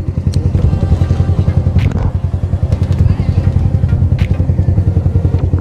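A motorcycle engine idling close by: a steady, low, rapid pulsing beat, with a few brief clicks over it.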